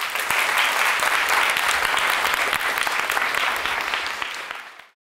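An audience applauding, a roomful of people clapping, fading and then cut off abruptly near the end.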